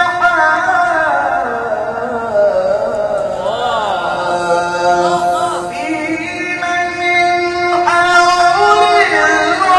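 A man's solo Qur'an recitation (tilawah) in a melodic chant, holding long notes broken by ornamented, wavering turns; the voice steps up in pitch near the end.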